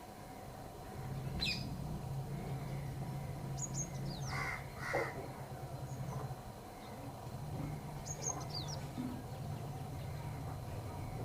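Crow cawing twice in quick succession, about half a second apart, near the middle, with faint high chirps of small birds around it.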